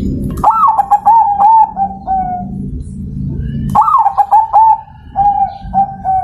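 Zebra dove (perkutut) cooing twice, each call a quick run of notes that ends in a longer drawn-out coo. A low rumbling noise fills the gaps between the calls.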